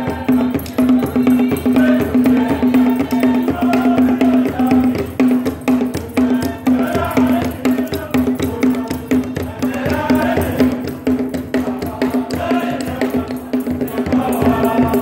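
A church choir sings a lively song with hand clapping and rattling percussion keeping the beat, over a low note that pulses in time.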